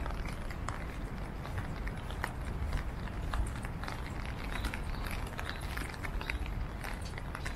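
City street ambience on a wet day: a steady low rumble of traffic and open air, with scattered light ticks and taps.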